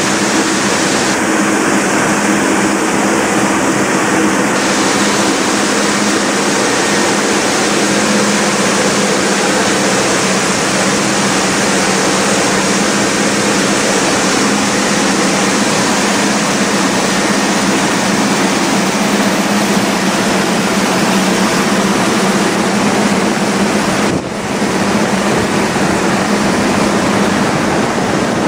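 AJL belt-type optical colour sorter running while sorting black beans: a steady machine hum under a loud, even rushing hiss, with a brief dip about three quarters of the way through.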